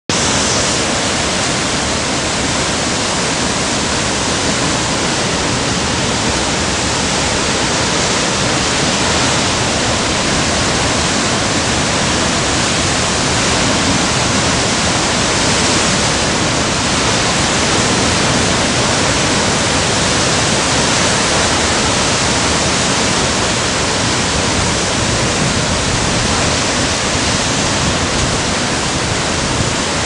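Rough sea breaking on a rocky shore: a loud, steady rush of surf and water noise in which no single wave stands out.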